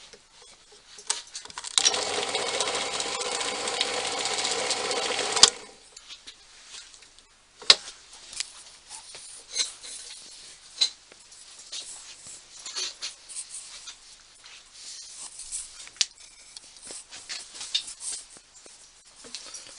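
Small bench drill's electric motor switched on about two seconds in, running steadily for a few seconds and cutting off abruptly. Scattered clicks and knocks of handling follow.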